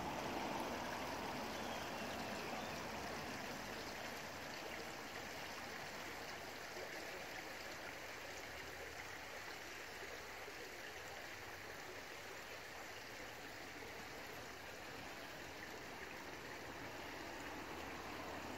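Shallow river running over a stony bed: a steady rush of flowing water, a little louder in the first couple of seconds.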